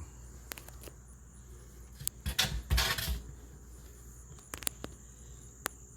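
Faint handling noise: a few scattered clicks and a brief rustle about two to three seconds in, over a steady high-pitched whine and low hum.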